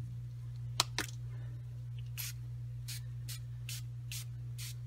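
Pump spray bottle of Glimmer Mist shimmer spray paint spritzing over the cards: two sharp clicks about a second in, then a run of short quick sprays, about two a second. A steady low hum runs underneath.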